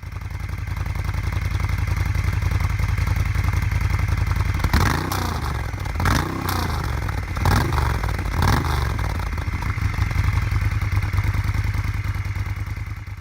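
Moto Guzzi transverse V-twin motorcycle engine idling with an even low pulse, blipped on the throttle several times in the middle so it briefly revs up and falls back.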